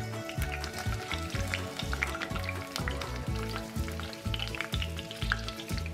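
Halved, seeded jalapeño peppers frying in hot oil in a stainless steel pan, crackling and sizzling with scattered pops, over background music.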